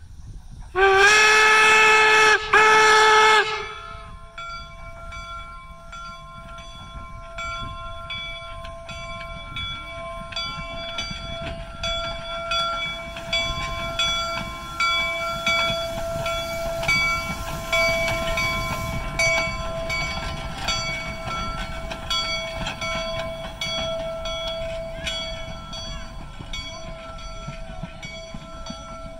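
Steam locomotive No. 119 sounds two loud whistle blasts about a second in, the second following right after the first. Its bell then rings steadily, struck over and over, as the engine runs past.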